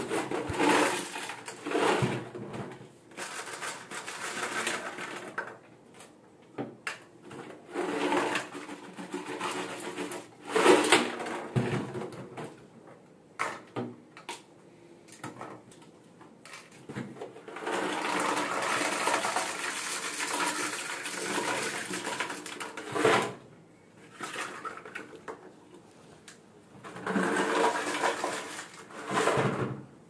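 Dishwasher salt being poured from a bottle through a plastic funnel into an IFB dishwasher's salt reservoir: irregular stretches of pouring and handling noise with short pauses between.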